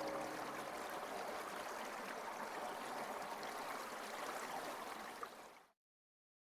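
Water stream running, a steady rushing trickle. It cuts off suddenly near the end.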